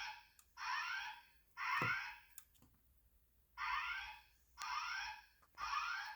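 EST Genesis fire alarm speaker strobe sounding the code-3 whoop evacuation signal: three short rising whoops, a pause, then three more. This temporal-3 pattern is the alert tone that comes before the recorded evacuation message.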